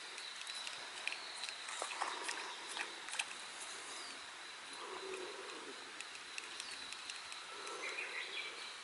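Faint outdoor ambience with a steady high thin tone, over which a Megabass i-Wing 135 wing-type topwater lure is reeled slowly across calm water, giving scattered small clicks and soft splashes. The ball rattle inside the lure is too far off to be heard clearly.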